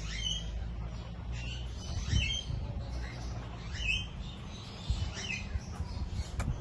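A bird chirping: short, high calls repeated about five times, a second or more apart, over a low rumble, with a few short thumps near the end.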